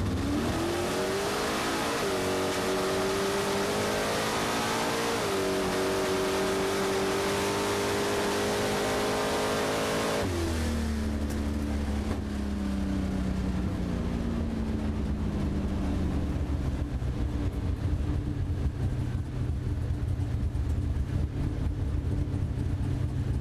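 1968 Hemi Barracuda Super Stock drag car's 426 Hemi V8 under full power down the strip. The pitch climbs, steps at about two and five seconds in, and holds high until the car lifts about ten seconds in. The pitch then falls away over several seconds, leaving a low rumble.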